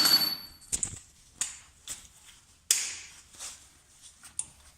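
Metal tools clanking and knocking against car parts during work on a drive axle: a series of separate sharp knocks, the first the loudest with a brief metallic ring, then lighter ones at irregular intervals.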